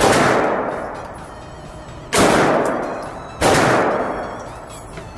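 Three pistol shots, the first two about two seconds apart and the third a little over a second later, each followed by a long echoing decay from the indoor range.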